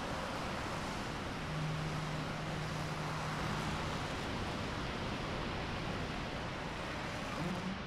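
Small liquid-oxygen rocket engine with a swirl injector firing on a test stand: a steady, even rushing noise of the exhaust that holds through the whole burn.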